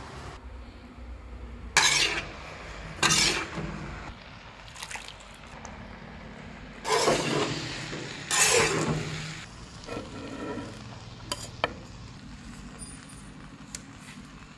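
Metal utensil stirring and scraping fusilli pasta in a large kadai: four loud scraping strokes, the last two longer, then a few light clinks against the pan near the end.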